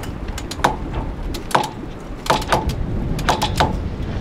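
Sailboat mast winch cranked by hand under heavy load, giving sharp metallic clicks, often in pairs, every half second to a second as the drum's pawls engage. The halyard is under so much tension that the winch turns only slowly.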